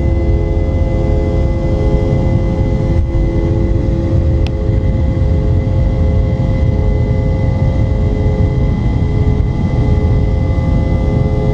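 Boeing 717 cabin noise: a steady rumbling roar from its rear-mounted Rolls-Royce BR715 jet engines, with several steady whining tones on top. One of the lower tones drops away a little before halfway through.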